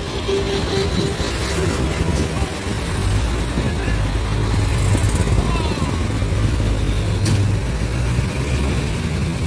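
Road traffic heard from a moving vehicle: a steady low engine and tyre rumble with the noise of cars and motorcycles passing close by.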